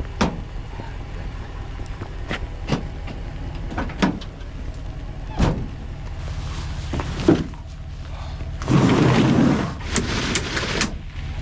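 Vehicle engine idling with a steady low hum, under scattered sharp knocks and clunks. About nine seconds in there are two seconds of loud rustling.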